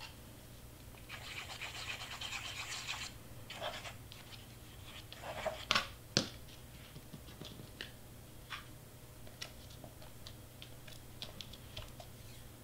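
Hands rubbing and pressing cardstock craft pieces on a paper base: a scratchy rubbing for about two seconds near the start, then scattered light taps and clicks.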